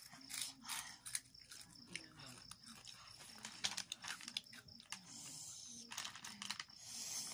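Crunchy snack chips being bitten and chewed, a quick irregular run of crisp crackles and crunches.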